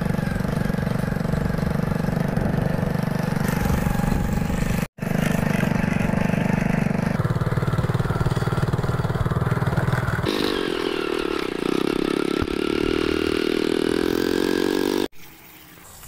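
Motor rickshaw engine running steadily while the rickshaw is driven, with the engine note changing abruptly a few times. Near the end it cuts off, leaving a much quieter sound.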